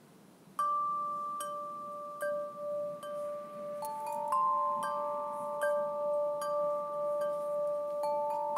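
Clear acrylic instrument played with the fingers: single bell-like notes sounded about every three-quarters of a second, starting about half a second in, each ringing on so that the notes overlap into a sustained chord.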